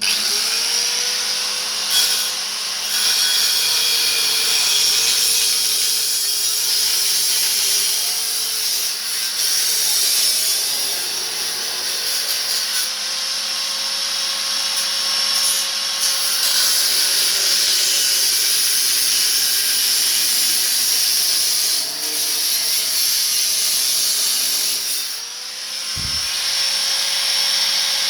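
Angle grinder with a cut-off disc cutting through exhaust pipe: a loud, steady high hiss over the motor's whine, which sags under load and picks back up several times. The grinder eases off briefly near the end and comes back up to speed.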